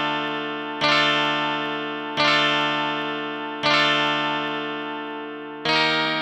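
Plucked-string chords played on the Heavenly Chords phone app, each struck and left to ring and fade, about every one and a half seconds; the chord changes near the end.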